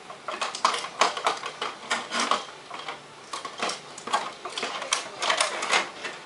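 Plastic clicking and crinkling as a Transformers toy and its clear plastic wrapping are handled, in two stretches of quick, irregular clicks with a short lull between them.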